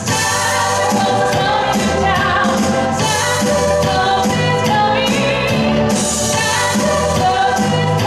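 A woman singing a song live into a handheld microphone, amplified through the hall's speakers over a music accompaniment with bass.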